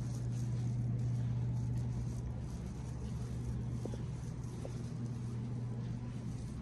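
Steady low mechanical hum of running room equipment, unchanging throughout.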